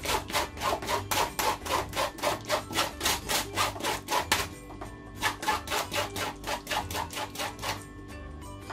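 Rapid back-and-forth rubbing of baobab pulp against a fine stainless-steel mesh sieve, as a drinking glass and then a whisk press the juice through to strain out residue and lumps. The strokes come about four a second, in two runs with a short pause a little past halfway. Soft background music plays underneath.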